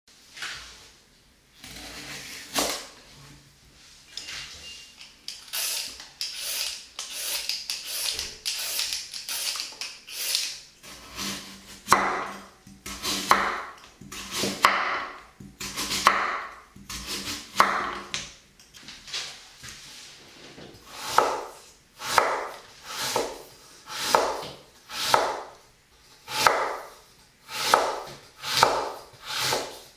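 Kitchen knife cutting carrot on a wooden cutting board, then shaving thin slivers off a burdock root, each stroke a separate crisp cut. Near the end the shaving strokes come about once a second.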